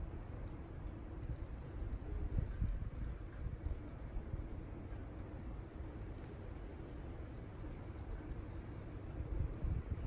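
A large swirling flock of small birds, taken for chimney swifts, giving high, rapid twittering chips in repeated bursts over a low rumble.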